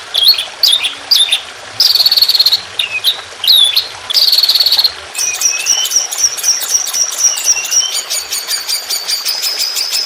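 Songbird song for a masteran track. The first half has sharp, curved whistled notes and two short buzzy phrases. From about halfway, a long, fast, cricket-like trill of repeated high notes runs over a lower sliding whistle.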